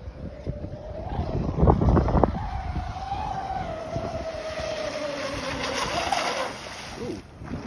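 RC catamaran speedboat's motor running flat out, a rising whine with rushing spray as the boat closes in. The pitch sags as it passes close by, and the sound drops away suddenly near the end. Wind buffets the microphone about two seconds in.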